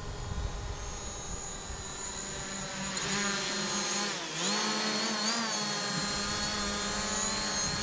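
DJI Mavic Pro quadcopter's propellers buzzing as it flies close by. It grows louder about three seconds in, then its pitch dips and rises again as the motors change speed.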